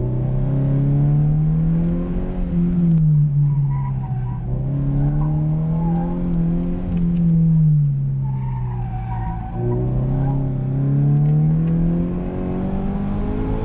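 Car engine heard from inside the cabin under hard driving, its pitch climbing for a few seconds and falling again several times as the driver accelerates and lifts off, with one sudden drop about nine and a half seconds in. A wavering higher squeal of the tyres comes and goes over the top.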